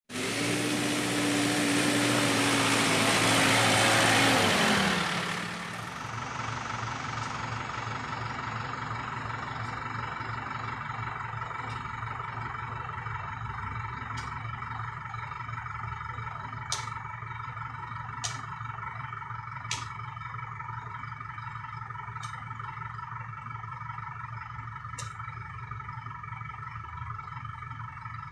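A tractor engine running loud, its pitch dropping about four seconds in. Then a steady low engine hum with an insect drone, and sharp knocks every second or two as oil palm fruit bunches are thrown into a steel tractor trailer.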